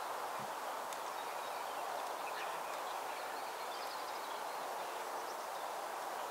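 Steady outdoor background hiss with faint bird chirps about halfway through.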